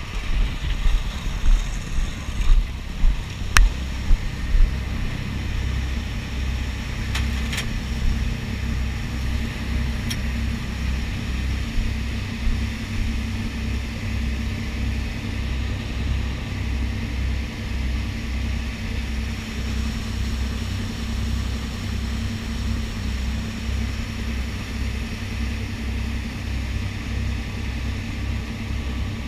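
Pilot boat's engines running under way with a steady low throbbing drone, mixed with wind on the microphone and water rushing past the hull. Heavy low thumps in the first few seconds, with a couple of sharp clicks.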